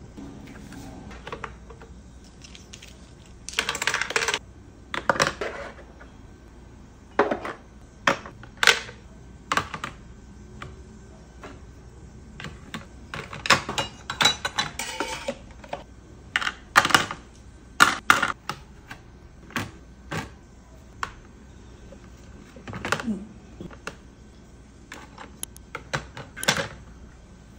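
Plastic drawer organizer bins and kitchen utensils being set into a drawer: irregular clacks and rattles of plastic and metal tools knocking against the plastic bins, with a few longer clattering stretches.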